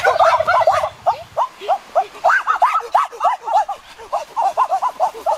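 A flock of birds calling: many short rising-and-falling calls overlapping, several a second, with a low rumble beneath them in the first second and a half.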